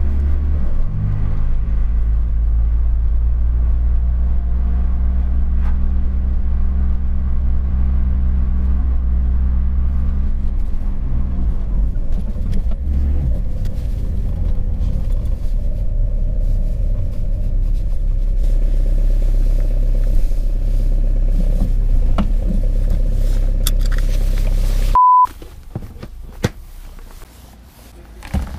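Peugeot 306 turbodiesel engine running steadily under way, heard from inside the cabin, easing to a lower rumble about halfway through. Near the end a short high beep, then the engine sound cuts off, leaving quiet clicks and handling sounds at the fuel filler flap.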